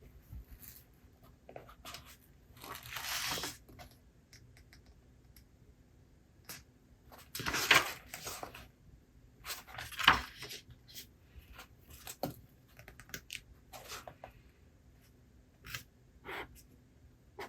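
Paper pages of a book being turned and handled: several short papery swishes, the loudest about eight and ten seconds in, with light taps and clicks between them.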